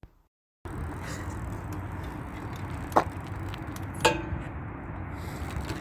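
BMX bike riding: a steady rushing noise of tyres and wind, with two sharp metallic knocks about a second apart, the second ringing briefly. It starts after a brief silence.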